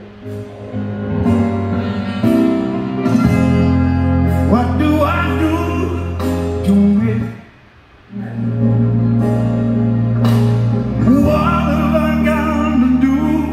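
A song with singing over a steady bass line, played through a speaker cabinet driven by an XOVER CA-1201 switching power amplifier. The volume comes up over the first second or two as the amp's gain knob is turned, the music drops out for about a second just past halfway, then carries on.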